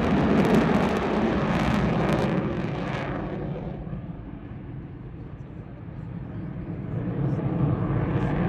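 F-22 Raptor's twin jet engines in afterburner: a loud crackling roar that fades over the first few seconds to a low rumble, then builds again near the end as the jet returns.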